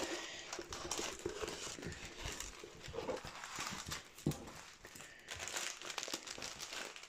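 Rolled diamond painting canvas, stiff and covered in plastic film, crinkling and rustling as it is unrolled and pressed flat by hand, with scattered small taps and crackles.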